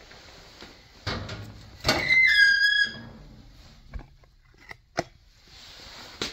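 Handling noises: a knock about a second in, then a louder clatter with a brief high squeak, followed by a few sharp clicks near the end.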